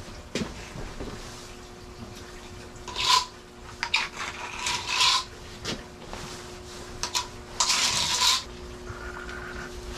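A thick, wet brown paste being scooped and pulled apart by hand. There are a few short, noisy scrapes: one about three seconds in, several between four and five seconds, and a longer one near eight seconds. A steady hum runs underneath.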